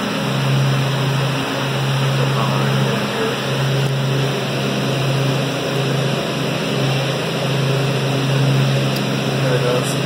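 Walk-in cooler evaporator fans running: a steady, loud hum with rushing airflow noise.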